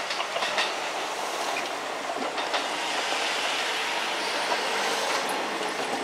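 Kintetsu electric train running past on the tracks: a steady rush of wheel and rail noise, with the wheels clacking over rail joints now and then.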